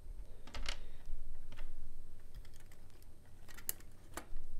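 Small plastic and metal parts of a toy train locomotive's motor truck clicking and tapping as they are handled and fitted together by hand, in a few scattered sharp clicks.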